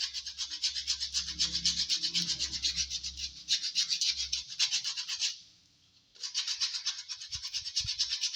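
Hand sanding with used metal-grade sandpaper around the edge of a hole cut in a speaker box, in quick back-and-forth scraping strokes. The strokes stop for under a second about five seconds in, then start again.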